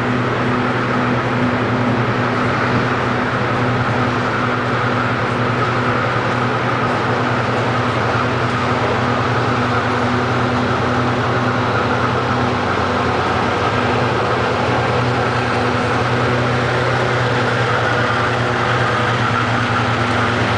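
Lashup of GE diesel-electric freight locomotives (C36-7 and C30-7MP units) running under power as they approach and pass, a steady deep engine drone over a broad rushing noise.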